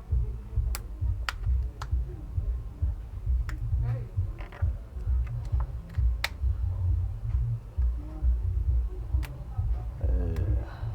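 Scattered sharp clicks and taps of a prying tool against a smartphone's touchscreen glass and frame as the glued-on touch panel is worked loose, over a continuous low rumble.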